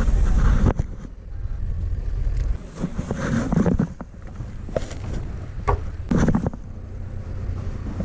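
Wind buffeting the microphone in gusts, over a low rumble, with a few sharp clicks.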